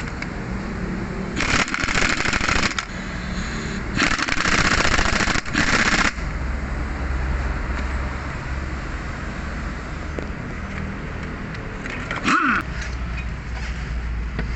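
Impact wrench run in two rattling bursts, about a second and two seconds long, working the nuts on a car's front shock absorber assembly. A steady low hum follows.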